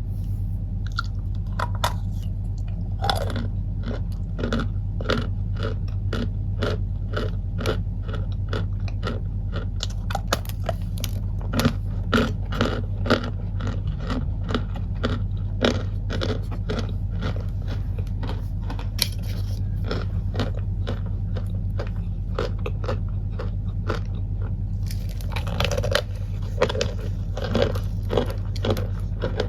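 Chunks of cornstarch crunching in quick, repeated crunches over a steady low hum. The crunching gets denser and crisper near the end.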